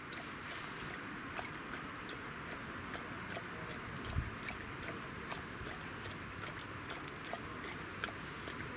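Small fire of wood shavings catching flame, with faint scattered crackling ticks and the rustle of shavings being handled, over a steady outdoor hiss. A soft low thump comes about four seconds in.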